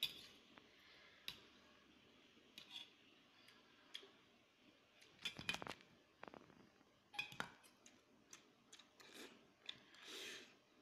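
Metal forks clinking and scraping on a stainless steel plate as instant noodles are lifted and twirled, in scattered taps with a quick cluster about halfway through. Near the end, a short slurp of noodles being sucked up.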